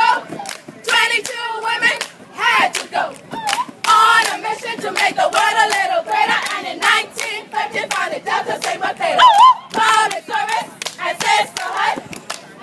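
A group chanting and shouting while clapping hands sharply in rhythm, with whoops and cheers from a crowd.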